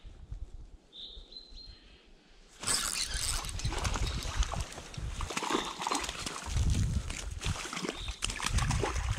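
A small bird chirps once. Then, about two and a half seconds in, loud rustling and scraping with small knocks starts suddenly as a jacket sleeve rubs across the chest-worn camera's microphone during a cast with a spinning rod.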